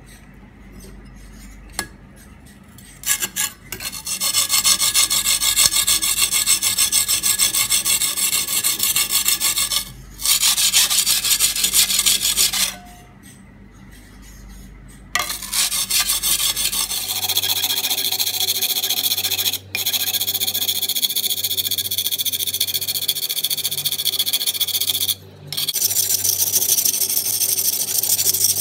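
Steel cleaver blade being ground back and forth on a coarse carborundum whetstone, a loud harsh scraping in long spells with a pause about halfway through. The coarse stone is grinding out a chip and reprofiling the edge.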